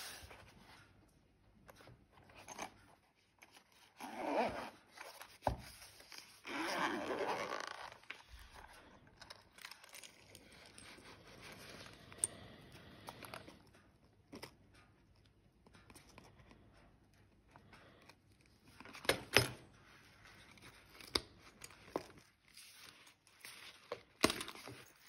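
Zipper of a soft lure case being pulled open in two long strokes, about four and seven seconds in, then quieter handling of the case and its metal spoon lures, with a few sharp clicks near the end.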